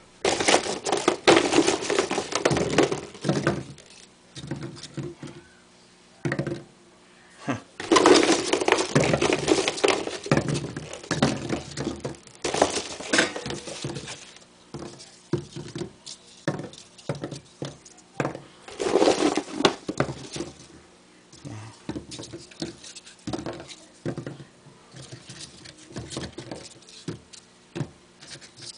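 Balls of crumpled junk-mail paper being handled and shuffled together on a wooden nail board, rubbing and knocking against each other and the wood in a crackly scraping clatter. There are three longer bursts, about a second, eight and nineteen seconds in, with scattered clicks and knocks between.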